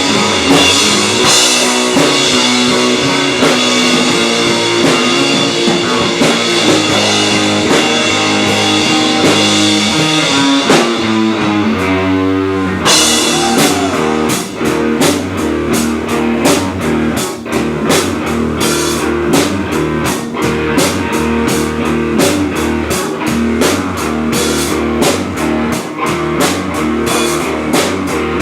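Rock band playing electric guitar and drums. A wavering guitar note leads into a fuller, driving drum beat about thirteen seconds in.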